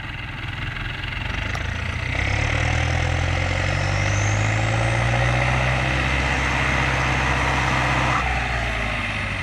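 Diesel tractor engine working hard under load while a car's engine revs against it in a tug-of-war pull. The engine note grows louder about two seconds in, holds, then eases about eight seconds in, with a faint rising whine from the revving car in the middle.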